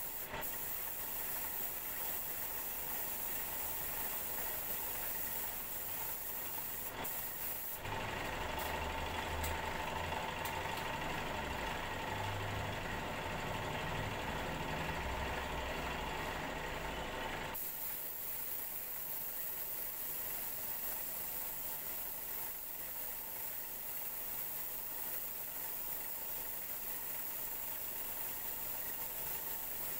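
Compressed-air spray gun hissing steadily as it lays down black paint. About a quarter of the way in, a louder, lower, rough mechanical noise takes over for about ten seconds, then the hiss returns.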